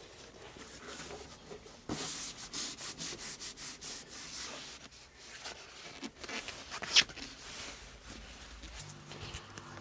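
Scraping and rubbing from hands-on work fitting sound-deadening material inside a car, with irregular knocks and one sharp click about seven seconds in.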